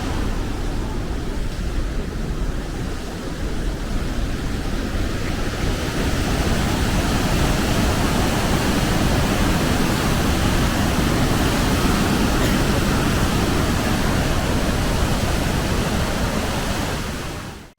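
Athabasca Falls: a steady, loud rush of falling water that cuts off suddenly at the very end.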